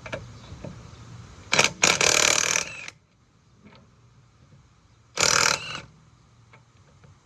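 Impact wrench hammering in short bursts as it loosens wheel lug nuts: a brief burst, then a longer one of about a second, then another short burst a few seconds later.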